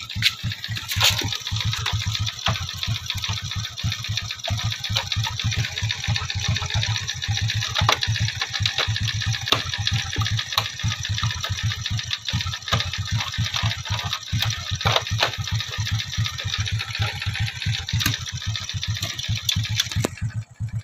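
Honda XRM 125's single-cylinder four-stroke engine idling with a fast, even pulse, with a few sharp knocks from its plastic body panels being handled.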